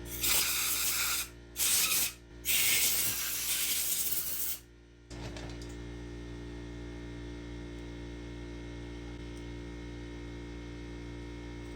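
Compressed air hissing from an air blow gun in three blasts, two short and the last about two seconds long, then a steady electrical hum.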